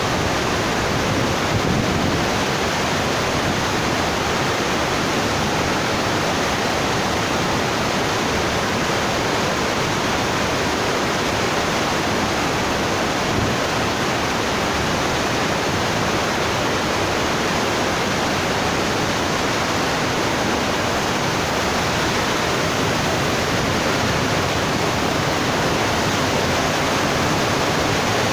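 Steady rushing water, an even unbroken wash like a waterfall or fast stream.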